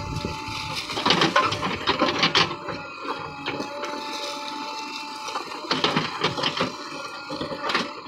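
JCB 3DX backhoe loader digging, its rear bucket crunching and scraping through stones and dry brush in two loud bursts, about a second in and again near six seconds, over the machine's steady drone.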